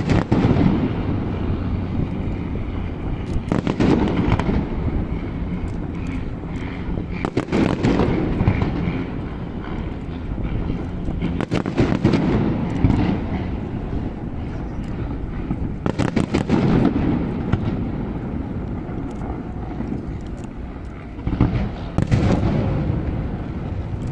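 Aerial fireworks display: shells bursting with deep bangs about every four seconds, with lighter crackling between them.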